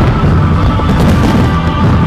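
Loud show music playing, with firework bangs and booms going off under it.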